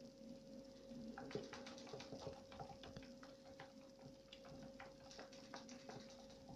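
Rat running in a 33 cm Trixie plastic exercise wheel: quick, irregular ticking and pattering of its feet on the turning wheel, over a faint steady hum.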